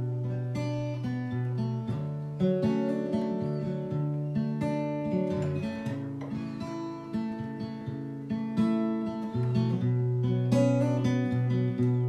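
Acoustic guitar playing an instrumental piece: plucked notes ringing over held bass notes.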